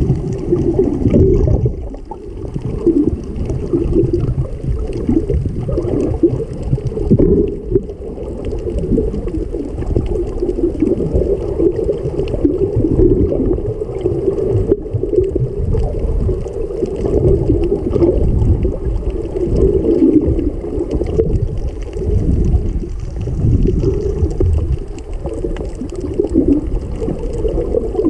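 Muffled water noise heard from underwater through a GoPro's waterproof housing: a deep, uneven rumble that surges and dips.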